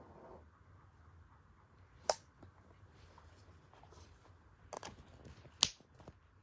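A few sharp, short clicks over faint room tone: one about two seconds in, a small cluster near five seconds, and the loudest just before six seconds.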